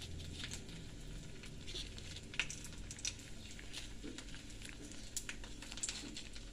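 Banana leaf crinkling and rustling softly as it is folded by hand around a piece of fish, with scattered small clicks and crackles.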